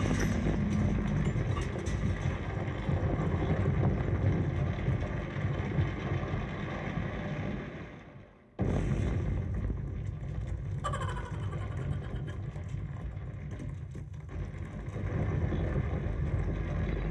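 Projection-show soundtrack over loudspeakers: a heavy, low, rumbling bed of sound effects with no clear music. It fades almost to nothing about eight seconds in, then cuts back in suddenly.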